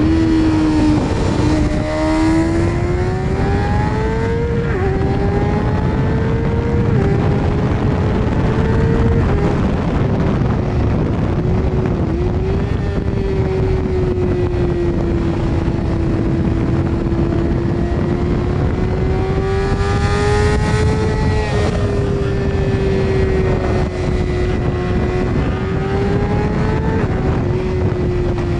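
BMW S1000RR's inline-four engine pulling hard through the gears: its note climbs and drops sharply at three upshifts in the first ten seconds, then holds a steady cruise with small rises and falls. Heavy wind rush on the microphone runs underneath.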